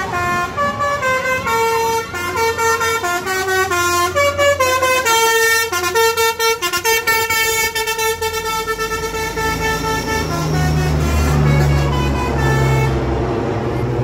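A tour bus's telolet basuri musical horn playing a multi-note tune of stepping pitches for about ten seconds. Then the bus's engine runs loudly for a few seconds as it pulls away past the crowd.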